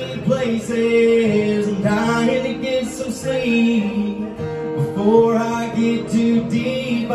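A man singing with his own strummed acoustic guitar, performed live.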